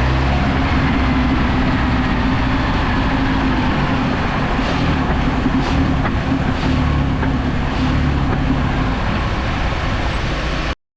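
2006 Jeep Wrangler TJ's 2.4 L four-cylinder engine running while being revved and let off in gear to provoke a drivetrain clunk; the engine note shifts a few times, with a few faint knocks in the middle. The sound cuts off abruptly near the end.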